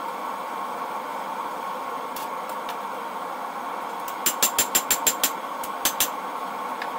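Hammer blows on red-hot leaf-spring steel on an anvil: a few faint strikes, then a quick run of about seven ringing blows a little past four seconds in and two more near six seconds. A steady drone sounds underneath throughout.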